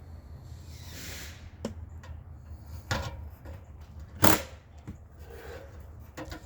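A handful of sharp knocks and clatters, the loudest about four seconds in, over a low steady hum.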